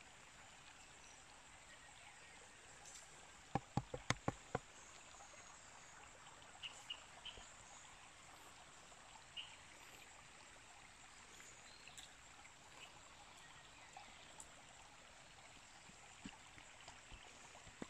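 Faint steady rush of creek water, with a quick run of five or six sharp taps about four seconds in and a few faint high chirps.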